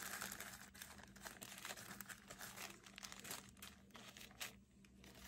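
Faint crinkling of small plastic zip-lock bags of diamond painting drills being shuffled and picked through by hand, with a few light clicks.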